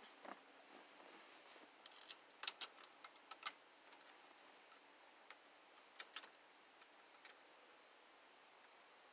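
Scattered sharp clicks and taps of small metal parts as screws are worked into a steering wheel hub adapter, in irregular clusters.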